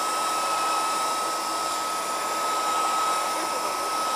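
Handheld blow dryer running steadily: a rush of air with a steady high motor whine.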